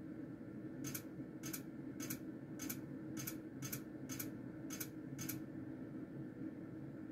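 Clicks from repeated taps on the arrow button of a Merkur Multi slot machine's touchscreen menu, nine in a row about two a second, then stopping. Under them runs a steady low hum.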